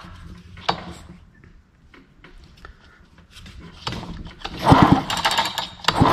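Old Poulan chainsaw being cranked on its recoil pull-starter with the spark plug out, so the engine spins over freely without compression while the plug is tested for spark. A couple of pulls in the second half, each a quick rattling clatter.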